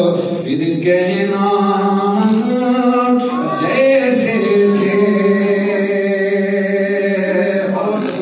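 A man singing a naat unaccompanied, holding long notes and sliding between pitches.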